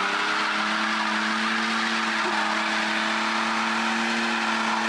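Ford Mustang V6 held at steady high revs in a burnout, the rear tyres spinning and squealing on the pavement. Both rear wheels spin together because the rear differential is welded.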